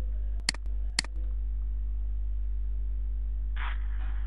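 Steady low electrical hum, with two computer mouse clicks about half a second apart in the first second and a brief snatch of a voice near the end.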